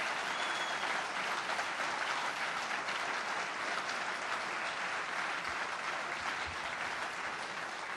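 Applause from a large conference audience, a steady dense clapping that eases slightly toward the end.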